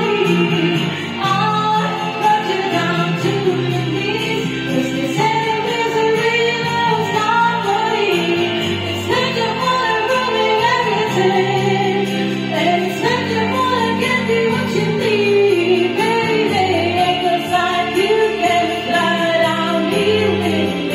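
A woman singing a slow pop song into a handheld karaoke microphone over a backing track, her voice carrying the melody the whole time.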